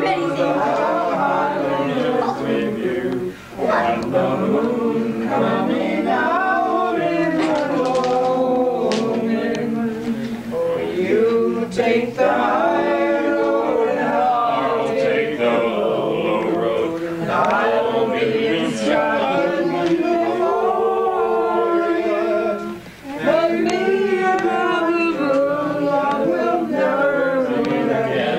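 A small group of men and women singing a song together from song sheets without instruments, a casual amateur sing-along, with brief breaks between phrases about three and twenty-three seconds in.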